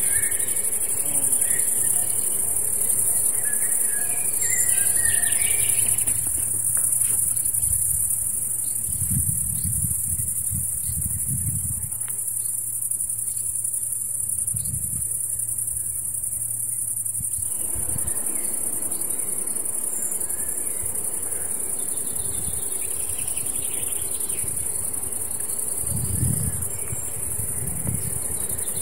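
Steady, high-pitched chorus of chirping field crickets, with a few faint bird chirps near the start and near the end and a couple of low rumbles.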